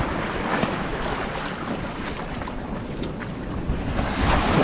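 Wind rushing over the microphone, with small waves washing into the mat of sargassum seaweed at the water's edge.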